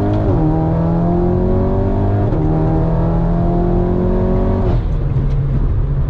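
Turbocharged 2.0-litre four-cylinder engine of an Audi S3 (8Y), with a catless 4-inch downpipe and no resonator, accelerating hard from inside the cabin. The engine note climbs in pitch, drops sharply at upshifts about a third of a second in and again about two seconds in, then falls back to a steady cruise just before five seconds.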